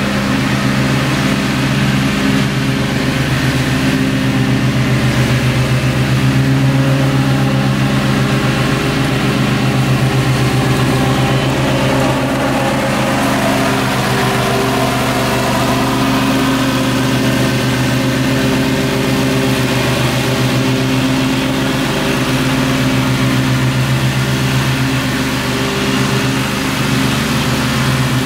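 Gravely zero-turn riding mower's engine running steadily at mowing speed with the blades cutting thick grass, a constant drone at an unchanging pitch.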